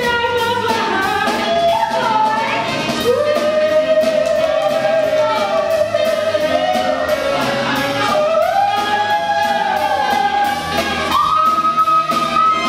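A woman sings a swing jazz number live with band accompaniment over a steady swing beat. She holds long notes with vibrato and climbs to a high held note near the end.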